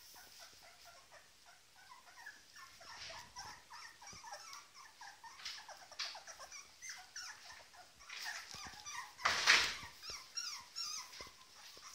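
Two-and-a-half-week-old puppies squeaking and whimpering in many short, high cries, over and over. About nine and a half seconds in there is a brief, louder rustle.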